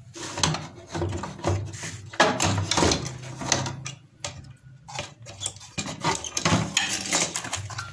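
A CRT television's main circuit board being slid out of its plastic chassis and handled: irregular scraping, rubbing and light knocking of the board against the cabinet, with wires dragging.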